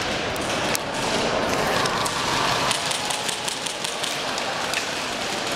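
Airsoft guns firing and BBs hitting hard surfaces: many sharp, irregular clicks and snaps over a continuous noisy din.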